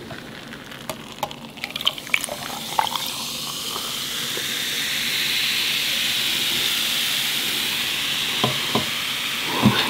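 Pepsi poured over ice in a glass held close to the microphone. A few sharp ice clicks come in the first seconds, then a fizzing hiss builds up and holds steady as the soda foams.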